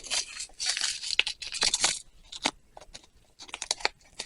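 Thick plastic jewelry bag being torn open and crinkled by hand: dense rustling and tearing for about two seconds, then scattered crackles and small clicks as it is handled.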